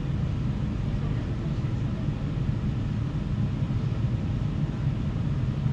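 A CFL regional express electric train running along the line, heard from inside the passenger car as a steady low rumble with no breaks or changes.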